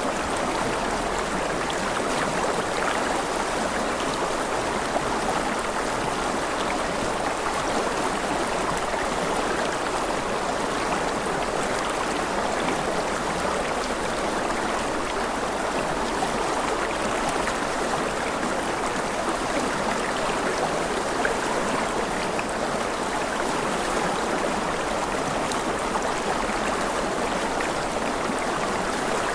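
Steady rushing water, like a flowing stream, with a fine, even patter and no change over the whole stretch.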